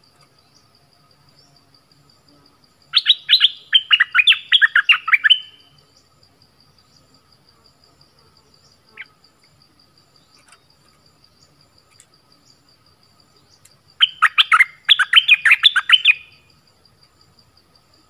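A songbird calls in two bursts of rapid, sharp, falling chirps, each about two and a half seconds long, the second about eleven seconds after the first. A faint, fast insect trill continues underneath.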